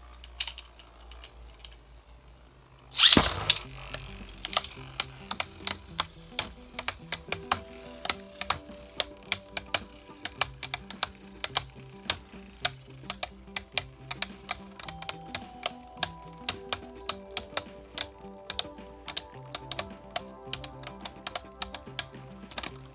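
A Beyblade launched into the stadium with a loud rip about three seconds in. After that come many sharp clacks, several a second, as the spinning 3D-printed tops strike each other and the stadium, over background music.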